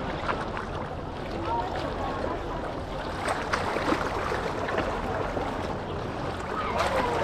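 Busy seaside beach ambience: water washing and splashing at the shore, with scattered distant voices of people and small clicks and knocks.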